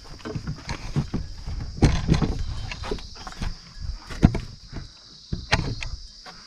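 Footsteps on dry soil with irregular knocks and scrapes of wood as a wooden plough is carried and set down among rocks; a sharp knock about two seconds in and another a little after four seconds. A steady high insect-like drone runs underneath.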